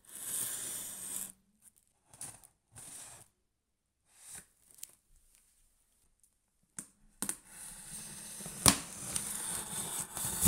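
Serrated plastic knife slicing through packing tape along the seam of a cardboard box. It rasps in a run at the start and a few short strokes, then makes a longer cut near the end, with a couple of sharp clicks as the blade catches.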